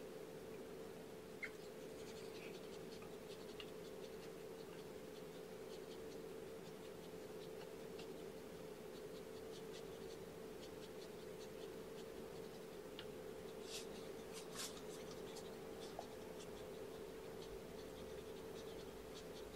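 Faint scratching and rustling of a soft white wipe rubbed against a newborn kitten to stimulate it to pee, with a few soft clicks about two thirds of the way in. A steady hum runs underneath.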